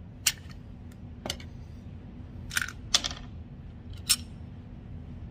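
Five sharp metallic clicks and clacks over a few seconds, some with a brief ring: a jammed Glock 43X pistol being handled and cleared after a failure to feed. A steady low hum runs underneath.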